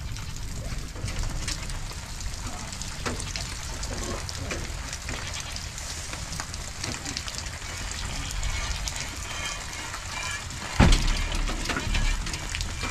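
Rain falling steadily and dripping off the edge of a timber roof, with many small ticking drips. A single loud thump comes near the end.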